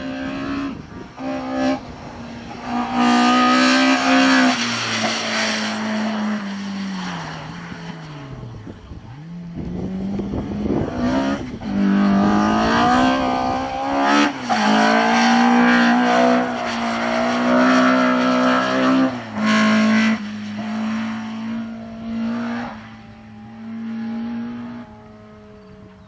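Race-prepared VW Polo with an engine of up to 1.3 litres driven at the limit through a slalom: the engine revs climb, fall away sharply as the driver lifts off, then climb again, with tyres squealing through the turns. The car passes close and the sound fades near the end as it drives off.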